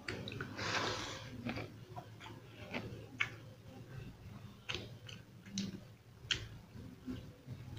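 A person eating pakhala (watered rice) and fried fish by hand, close to the microphone: chewing with wet lip and tongue smacks and scattered sharp clicks, and a short wet, noisy burst about a second in.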